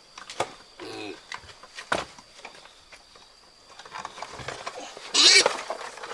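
Piglets trussed in a rope net squealing as they are handled: a short squeal about a second in and a loud, harsh squeal about five seconds in, with knocks and scuffling between.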